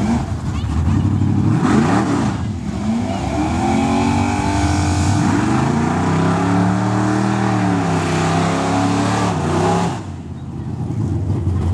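Two V8 drag cars, a 1979 Camaro with a 408 and a 1996 Chevy S10 pickup with a 355, running hard off the start line, their engine notes rising and falling again and again. The sound drops off sharply about ten seconds in as they pull away.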